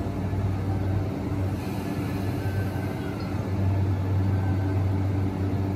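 JR E235 series 1000 electric multiple unit standing at the platform, its equipment giving a steady low hum that grows louder about three and a half seconds in.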